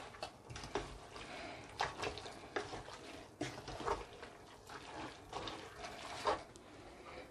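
A spoon stirring thick, wet leafy soup in a stainless steel pot: soft wet squelching and sloshing, with irregular light knocks of the spoon against the pot.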